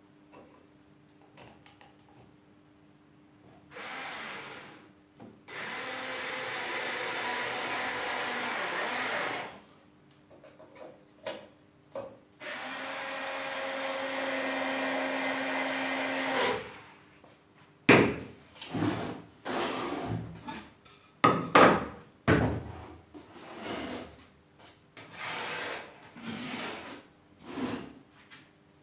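Homemade disc sander driven by a washing-machine motor running with a faint steady hum, as a piece of wood is pressed against the spinning sanding disc twice for about four seconds each, giving a steady rasping hiss. In the last ten seconds there is a string of sharp knocks and clatters.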